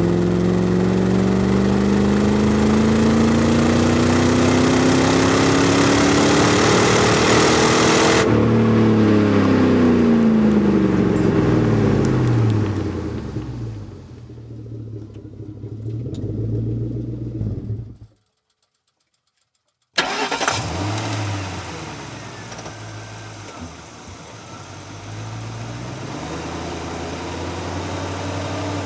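Car engine accelerating, its pitch rising steadily, then falling and fading as it slows. After about two seconds of dead silence, another engine sound comes in abruptly and runs unevenly before settling to a steady idle.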